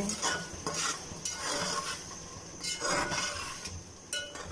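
Metal slotted spatula scraping and clinking against a metal cooking pot while stirring peas and masala, in several separate strokes.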